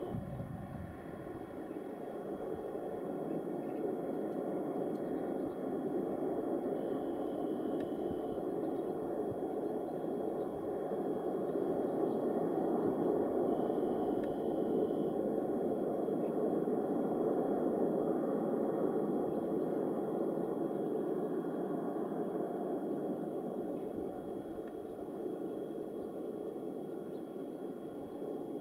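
Wagons of a distant freight train rolling past, a steady rumble of wheels on rails that swells to its loudest about halfway through and then slowly fades.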